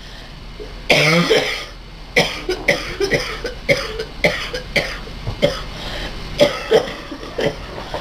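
A man coughing with laughter: one long burst about a second in, then a run of short coughing laughs, two or three a second.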